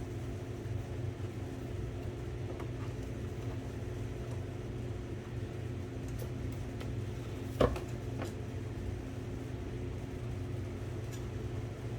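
A steady low mechanical hum runs throughout, with a few small clicks and taps of typewriter parts and tools being handled during repair. The loudest is a single sharp click about seven and a half seconds in.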